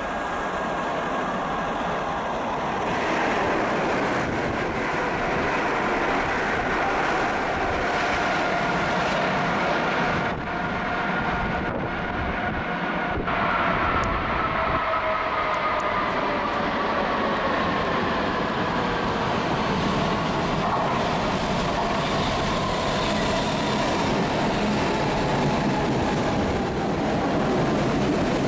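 PATCO Speedline rapid-transit trains running through the station, a steady rolling rumble of wheels on rail. In the second half a whine falls slowly in pitch as a train slows.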